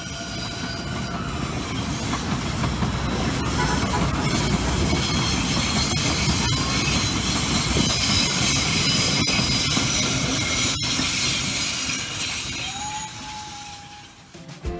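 Metrorail electric commuter train passing close by: a steady rumble of steel wheels on the rails that builds, holds, and fades near the end, with high wheel squeal and a few sharp clicks.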